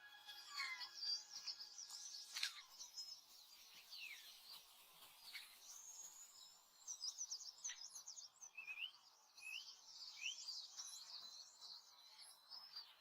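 Faint forest birdsong: several small birds chirping and trilling in quick high notes, busier in the second half.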